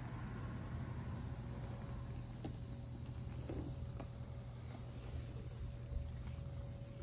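Black cat purring steadily while being petted, close to the microphone, with a steady high-pitched whine behind it.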